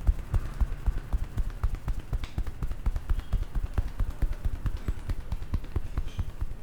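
Rapid percussive massage strokes: dull low thumps in a fast, even rhythm of about seven a second, some with a light click on top.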